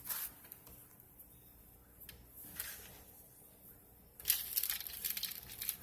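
Dry rolled oats being poured out, a crackly rustling hiss in short spells, louder and steadier from about four seconds in.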